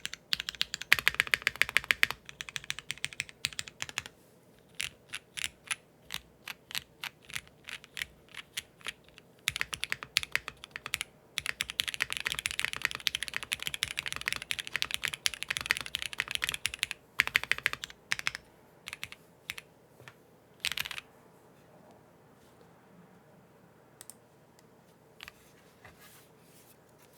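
Qwertykeys QK75 mechanical keyboard with Cherry MX Black linear switches on an aluminium plate, GMK keycaps and no foam, being typed on: a fast run of keystrokes, then slower single presses, a second fast run, and then only a few scattered presses near the end.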